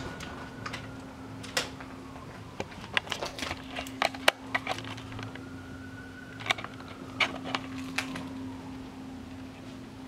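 Scattered light clicks and knocks, grouped in the middle, over a steady low hum.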